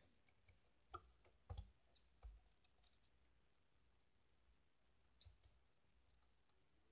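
LEGO pieces clicking and tapping as a LEGO ATV is handled and set in place on the brick-built trailer deck: several short, sharp plastic clicks in the first three seconds, then two more a little after five seconds.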